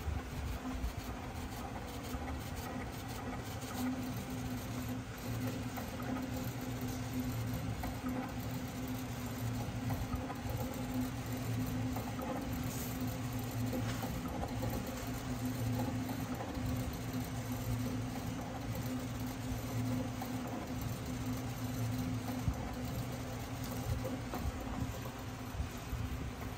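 SAGA A3 Pro decal cutting machine running as it cuts stickers from a holographic sheet: a steady motor hum from the moving cutting head and feed rollers, with many small irregular ticks.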